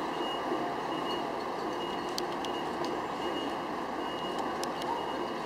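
Steady engine and water noise of a boat under way on a river, with a faint high beeping tone that comes and goes in short dashes and a few light clicks.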